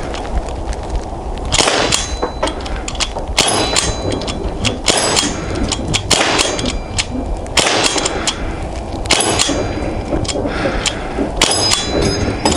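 A Sig Sauer MPX .177 pellet pistol, running on high-pressure air from a bulk-fill tank, fires over a dozen semi-automatic shots at an uneven pace, starting about a second and a half in. Many shots are followed at once by the ringing ding of pellets striking the steel paddles of a resetting target.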